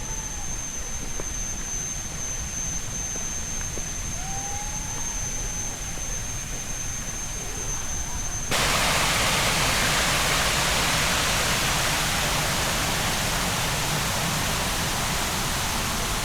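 Low outdoor rumble with a thin, steady high whine. About halfway through, a loud, even rushing-water hiss starts abruptly and carries on.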